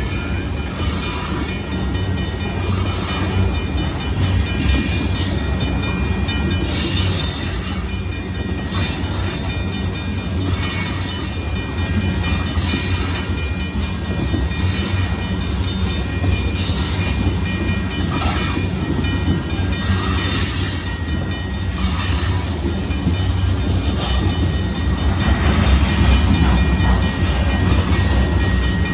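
A Union Pacific freight train of gravel cars rolling steadily past, with a constant low rumble and recurring clanks and clatter from the wheels on the rails. It grows a little louder near the end.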